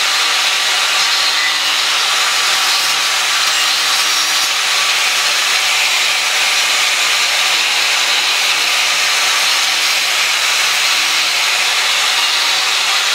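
Angle grinder running steadily, its disc grinding the woody base of a dried palm frond smooth.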